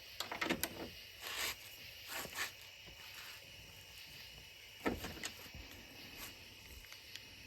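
Faint, scattered clicks and short rattles of hand tools, a cordless ratchet and socket, being handled on a bolt, in four brief clusters.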